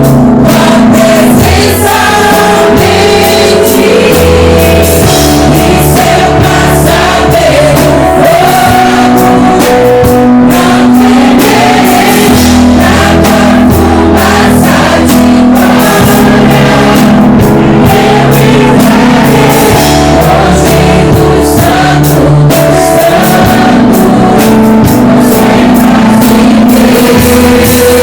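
Music: a worship song with a band and many voices singing together, drums and bass underneath.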